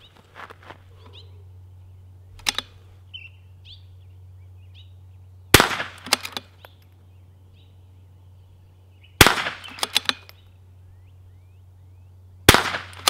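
Three unsuppressed shots from a Vudoo Gun Works V-22 .22LR bolt-action rifle, spaced roughly three and a half seconds apart, each followed by a few lighter clicks.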